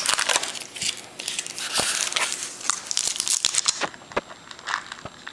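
Trading card pack wrapper crinkling and tearing as a pack is opened and handled: a dense crackle that stops nearly four seconds in, followed by a few light clicks.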